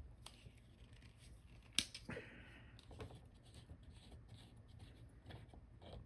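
Faint handling of small items on a workbench: scattered light clicks and taps, one sharper click about two seconds in, followed by a brief scratchy rustle.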